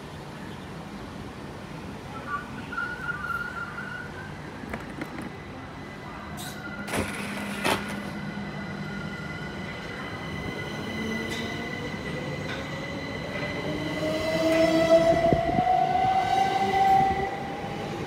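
Southern Class 377 Electrostar electric train pulling away from the platform. Its traction motors whine, rising steadily in pitch as it accelerates and loudest near the end. There is a sharp knock about seven seconds in.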